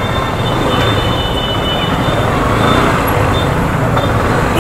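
Slow, jammed traffic heard from a motorcycle moving at walking pace: a steady engine and road rumble, with a thin high whine that comes and goes.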